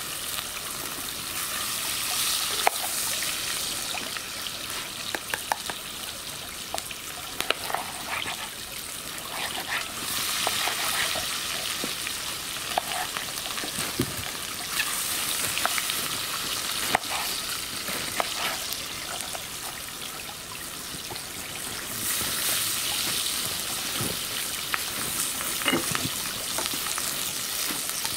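Steady sizzling hiss from a campfire and the cast-iron pot on its embers, broken by many short sharp clicks: crackles from the fire and a knife tapping on a wooden cutting board as red peppers are sliced.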